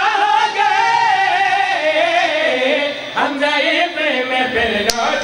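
Several men's voices singing a line of a devotional Urdu-Punjabi couplet together, unaccompanied. One long, wavering note sinks slowly in pitch, and a new phrase starts about three seconds in.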